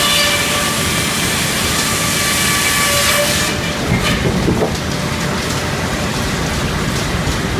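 Helle circular sawmill blade cutting a large Douglas fir log, a loud steady hissing noise with a faint whine in it. About three and a half seconds in the hiss drops away abruptly, leaving the mill's machinery rumbling with scattered knocks and clatter.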